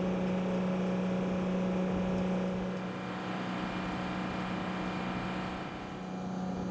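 Machinery running steadily: a constant low hum over a noisy wash, dropping a little in level about three seconds in.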